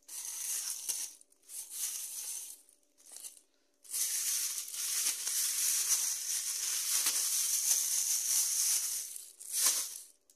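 Thin black plastic carrier bags rustling and crinkling as hands rummage through them and pull out groceries. A few short bursts come first, then about five seconds of continuous rustling, then one last short burst near the end.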